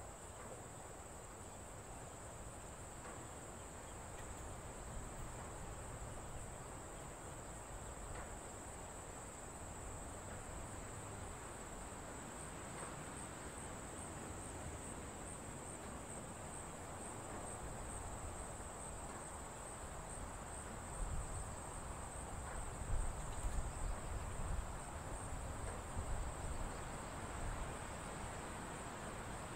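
A steady, high-pitched chorus of insects chirring without a break. In the last third a few low knocks and rumbles come and go underneath it.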